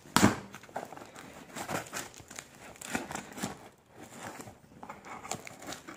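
A knife blade slicing through the packing tape on a cardboard box: a run of short scraping, crackling strokes, the loudest one just after the start.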